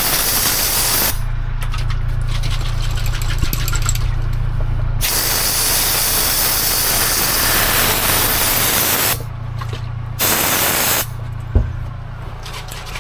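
Rust-protection coating being sprayed onto welded bare metal, heard as several bursts of loud spray hiss, the longest about four seconds, over a steady low hum.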